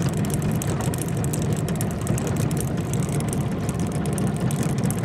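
Small boat's outboard motor running steadily at low speed, an even low hum that does not change.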